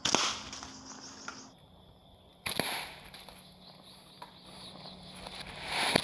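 Bamboo slingshot shots striking a log target: sharp cracks near the start, about two and a half seconds in, and again near the end, each fading quickly.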